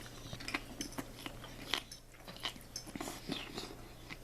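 A person chewing a mouthful of food close to the microphone, with irregular clicks and smacks of the mouth, over a faint steady hum.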